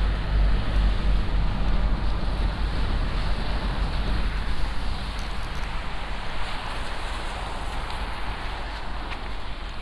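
Wind rushing over the microphone outdoors in a snowstorm: a steady noisy rush with a strong low rumble, easing off a little toward the end.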